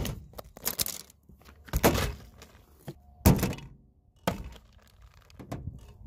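Repair supplies (a roll of fiberglass cloth, plastic mixing cups and a can of epoxy resin) set down one after another on plastic sheeting: about five separate thunks with short quiet gaps between them.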